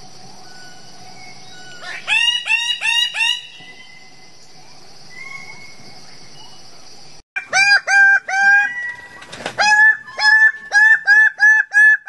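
Male birds-of-paradise giving loud, harsh display calls: a quick run of about five hooked notes about two seconds in, then, after a brief break, a longer run of the same notes at about three a second. A steady high hiss sits under the first half.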